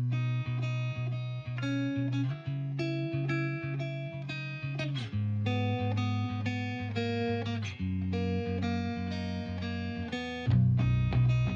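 Background music led by guitar, a steady rhythmic run of notes that grows fuller and louder with a heavier low end near the end.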